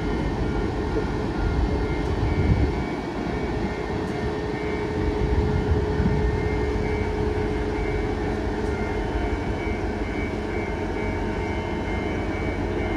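Diesel-electric locomotive running steadily while it is turned on a turntable: a low rumble with steady whining tones on top, a little louder in the first few seconds.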